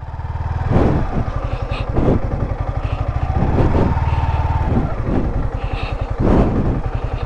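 Yamaha R15 V4's 155 cc single-cylinder engine running at low revs, its pulses steady throughout, as the bike crawls over muddy ground, with a few short rushes of noise over it.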